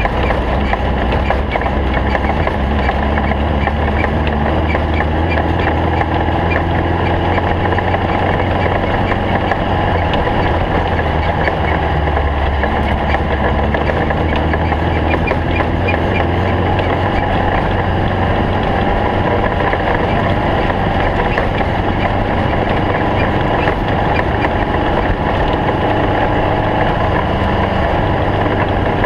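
Racing snowmobile engine running steadily, a constant drone with little change in speed.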